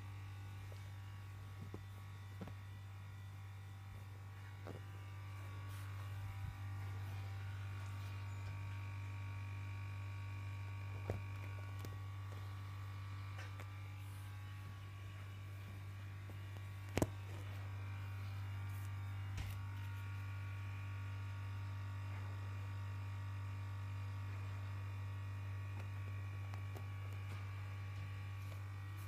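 A steady low electrical-sounding hum throughout, with a few short faint clicks.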